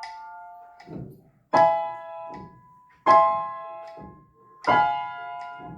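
Piano, right hand alone, playing slow legato chords without pedal. Three chords are struck about a second and a half apart, each ringing and fading, with softer notes between them.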